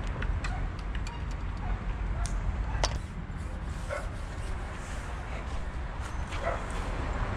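Steady low wind rumble on the microphone, with scattered light clicks and knocks of fishing tackle being handled and a few short yelps from an animal.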